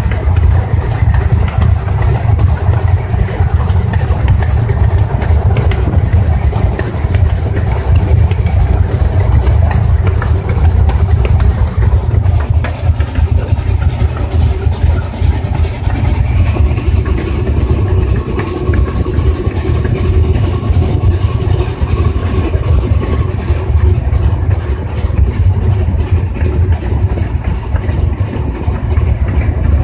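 Small steam locomotive running along its track, heard from its cab as a steady, loud low rumble through a phone microphone with poor sound.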